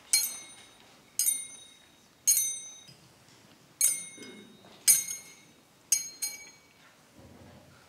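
Metal censer (thurible) swung while incensing the bell: a sharp, high metallic clink with a short ring at each swing, about once a second, two of them close together near the end.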